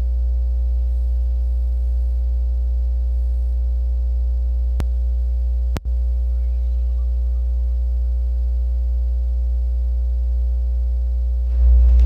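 Loud steady electronic hum with a row of fainter steady tones above it, broken by a click a little before the middle and a brief dropout about halfway. Near the end it grows louder as noisier sound joins it.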